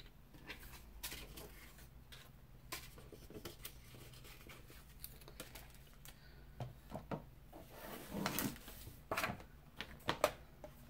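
Paper and crafting tools being handled on a tabletop: scattered light clicks, taps and rustles, busier and louder near the end.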